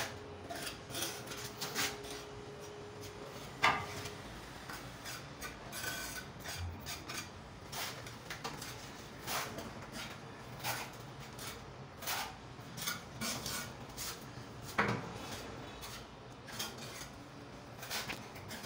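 A trowel scraping and dabbing mortar into the joint under a marble countertop: irregular short scrapes and taps on stone, with two sharper knocks, one about four seconds in and one about fifteen seconds in.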